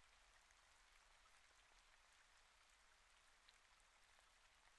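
Near silence: a very faint hiss with scattered tiny ticks.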